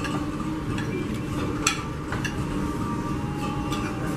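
Spoon and fork clinking and scraping against a plate while eating, a few sharp clicks with the loudest a little over one and a half seconds in, over a steady low hum of the room.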